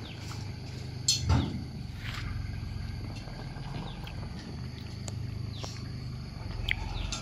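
Small plantation tractor's engine idling steadily, with a loud thud about a second in and a lighter knock about a second later as oil palm fruit bunches are tossed into its metal trailer.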